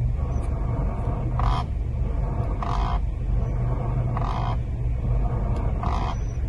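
Rubbery squeak from a Lada Xray Cross's steering column as the steering wheel is turned, four short squeaks about a second and a half apart over the engine idling. The squeak, together with friction felt in the wheel, points to rubbing inside the steering column on a nearly new car.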